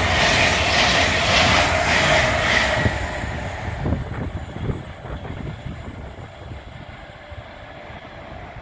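GWR Class 800 Intercity Express Train passing close at speed: wheel-on-rail rush with a regular clatter about twice a second as the coaches go by. The noise dies away after about three seconds as the last coach passes, leaving a few faint clicks from the rails.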